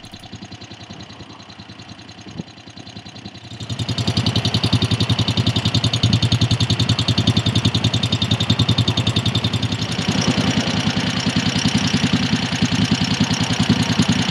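Moto Guzzi Le Mans III's air-cooled 850 cc V-twin idling through its stock Lafranconi mufflers, with an even rapid pulse. It is fainter for the first few seconds and much louder from about four seconds in.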